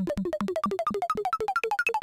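Roland MKS-80 Super Jupiter analog synthesizer playing a custom sound effect. It is a fast, even string of short blips, about eight a second, each dropping quickly in pitch, while the whole series climbs steadily higher.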